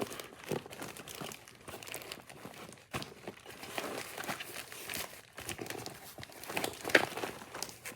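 Irregular rustling and crinkling with scattered small clicks as a small emergency kit and its packaging are handled and opened, with one sharper click about seven seconds in.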